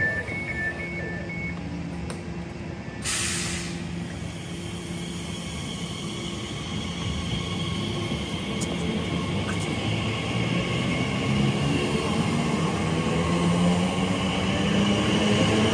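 A train running at the platform. Its hum grows steadily louder and rises in pitch through the second half, as when a train picks up speed. There is a brief hiss of air about three seconds in.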